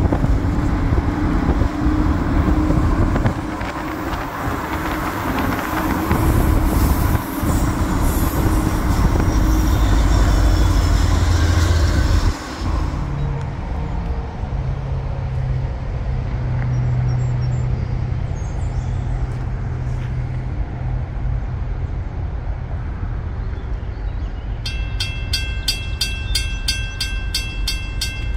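Loud, low rolling rumble for about the first twelve seconds, which cuts off abruptly to a quieter steady low hum. About 25 seconds in, a railroad grade-crossing bell starts ringing in a fast, even rhythm as the crossing gates begin to lower.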